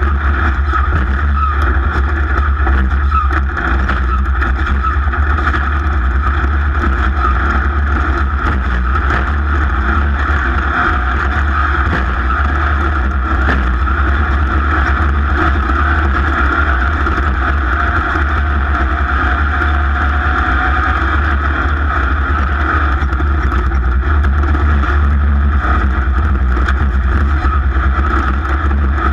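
Racing jet ski's engine running steadily at speed, loud and unbroken, with some wind noise.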